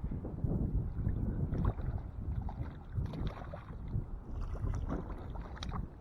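Wind rumbling on the microphone, with scattered light splashes and clicks while a hooked crappie is fought to shore on an ultralight rod.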